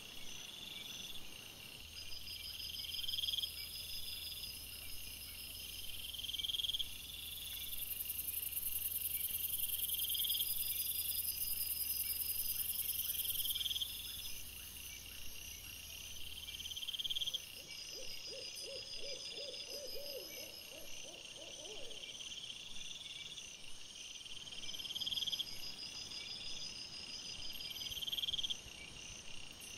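Night insects, crickets, chirring steadily in woodland, with a pulsing high trill about every two seconds. About two-thirds of the way through, a quick run of repeated low calls lasts a few seconds.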